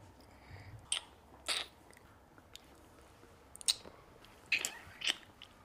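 Wet kissing: about five short lip smacks and tongue slurps at irregular gaps.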